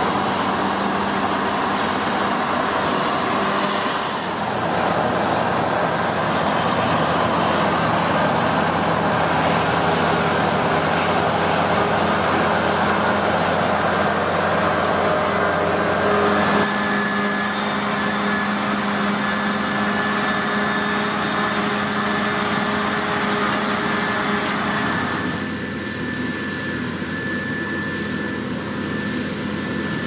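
Claas Lexion combine harvesters running steadily while harvesting wheat, a continuous mechanical drone with a few steady tones that changes character abruptly several times.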